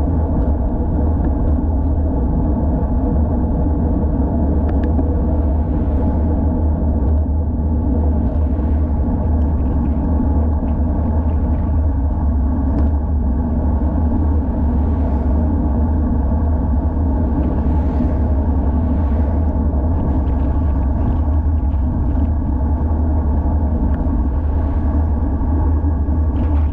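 Steady low rumble of wind buffeting a GoPro Hero 5 Session's microphone, with tyre and road noise, while a road bike is ridden at speed.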